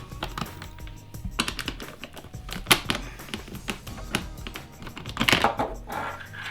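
Irregular light clicks and taps of hand work on a washing machine, with a sharper knock a little under three seconds in, over music in the background.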